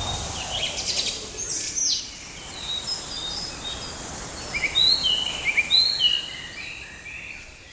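Rainforest ambience: a steady high hiss with short, high-pitched chirping calls, a quick run of them about five to six seconds in, then fading.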